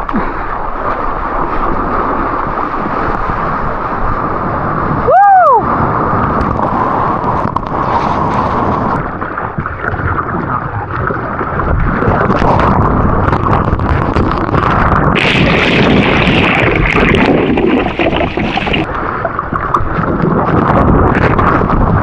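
Loud rush of wind and surf buffeting the microphone, with a brief swooping pitch glide about five seconds in.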